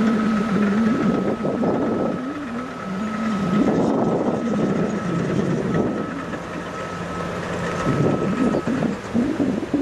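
Motor grader's heavy diesel engine working, its pitch rising and falling as the load changes, with a thin steady high whine over it that stops near the end.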